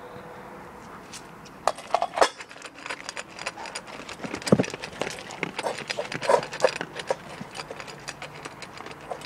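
Dog eating dry kibble from a stainless steel bowl: rapid crunching and kibble clattering against the metal. There are a few loud clanks about two seconds in as the bowl is set down on the floor.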